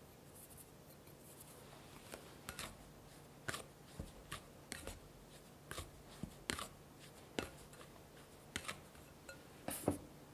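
Plastic bowl scraper working through flour in a glass mixing bowl, making about a dozen short scrapes and clicks of plastic against glass at irregular intervals, the loudest near the end. A soft hiss of flour being poured comes at the start.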